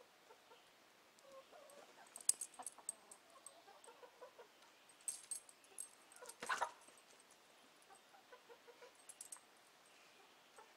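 Chickens clucking softly around a Doberman pinscher, with scattered clicks and one short, louder animal call about six and a half seconds in, as the dog lunges.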